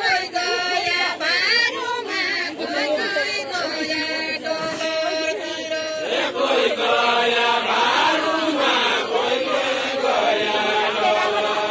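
A group of men singing a deuda, the Far-Western Nepali folk song, together in a chant-like unison with long held notes and no instruments. The singing grows fuller about halfway through.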